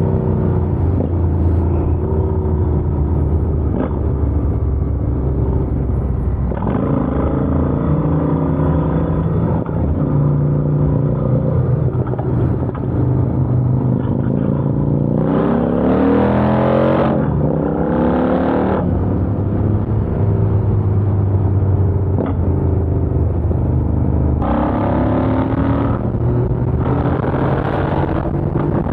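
Yamaha FZ-09's 847 cc three-cylinder engine running on the road, its pitch rising and falling through the gears. It revs up hard about halfway through and again near the end.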